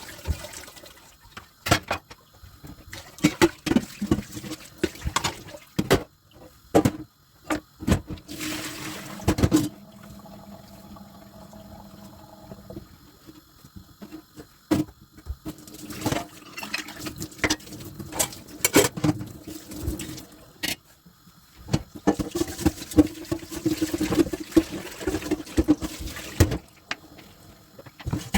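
Dishes being washed by hand at a kitchen sink: water running and splashing, with many short clicks and knocks as dishes and utensils are handled.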